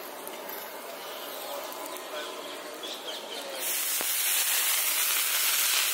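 Loud steady hiss of water sizzling and steaming on a hot dosa griddle, starting a little over halfway through, after a stretch of quieter outdoor street-stall background.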